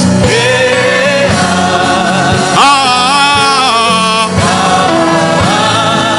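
Gospel worship music: a choir singing long held notes over instruments and a steady drum beat.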